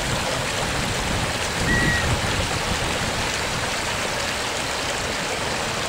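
The Mühlenau stream rushing over stones at its mouth into the Kiel Canal: a steady, even rush of water.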